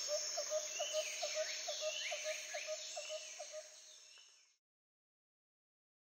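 Woodland birds calling: a short low note repeated about four times a second under higher sweeping song phrases. It fades out about four seconds in.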